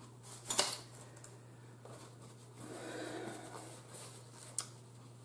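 A paper napkin rustling softly as it wipes the mouth and hands, with a sharp click about half a second in and another short click near the end, over a low steady hum.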